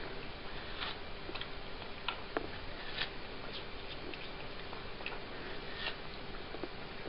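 A cat chewing and biting into a slice of watermelon: irregular small clicks and smacks over a steady hiss and faint hum.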